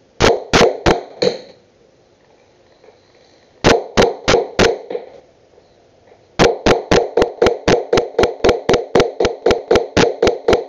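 Hand hammer striking a nail into a wooden board: four blows, a pause of about two seconds, four more, then a fast, even run of about twenty blows, four or five a second.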